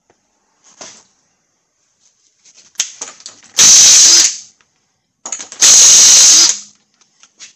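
Impact wrench loosening wheel lug nuts: two loud bursts of about a second each, roughly two seconds apart, with light clicks and knocks of the socket going onto the nuts before each.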